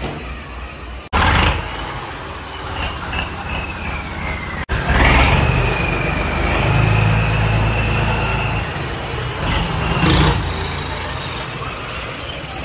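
John Deere 5050D tractor's three-cylinder diesel engine running and being revved as the tractor pulls away, swelling louder about a second in, around five seconds in, and again near ten seconds. A high whine rides over the engine in the middle, and the sound breaks off abruptly twice in the first five seconds.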